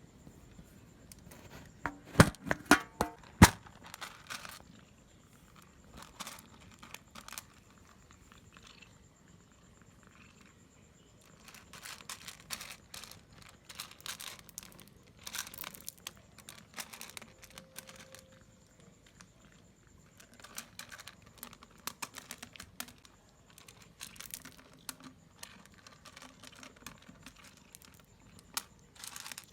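Irregular crinkling, crackling and clicking, with a cluster of loud sharp cracks about two to three and a half seconds in.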